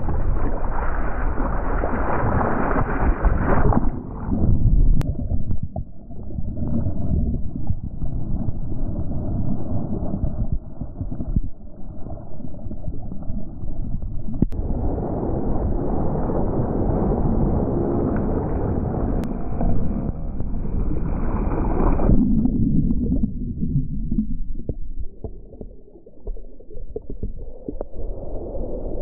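Seawater sloshing and gurgling around a GoPro Hero 10 held in the water, heard through its microphones under a wet Rycote Micro Windjammer, so the sound is dull and muffled with almost no treble. It turns duller still from about four seconds in until about fifteen seconds in. Near the end, a small wave washes in at the camera.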